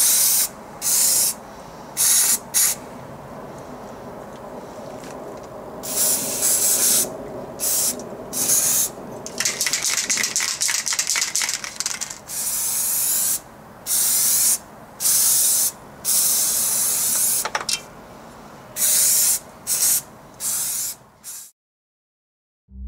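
Aerosol can of paint remover spraying in many short hissing bursts, with one longer spray near the middle. The sound cuts off suddenly near the end.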